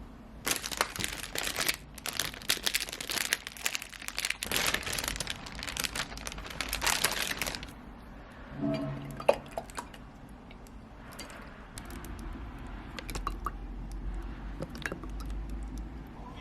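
Packaging crinkling and rustling as it is handled and opened: dense for the first seven or eight seconds, then softer, scattered rustles with a few light clicks.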